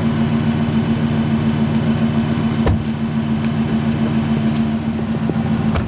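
Jeep Gladiator's engine idling steadily, with two short sharp clicks, one midway and one near the end.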